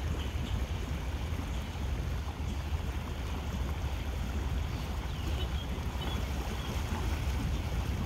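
A motor boat under way: a steady low engine rumble mixed with wind buffeting the microphone.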